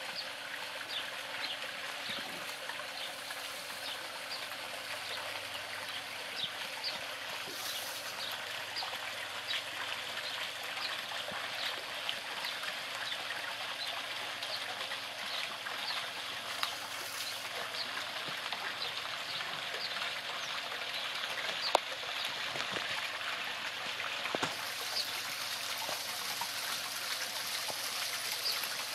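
Garden pond fountain jet and small rock waterfall splashing and trickling steadily, with many small droplet plinks. A single sharp click about three-quarters of the way through.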